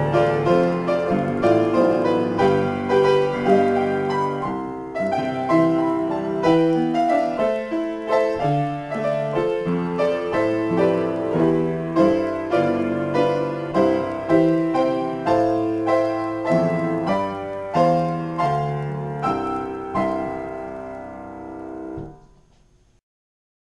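Solo acoustic piano improvisation: chords and notes struck in a steady, regular pulse. Near the end the last notes ring and die away, then the sound cuts off abruptly.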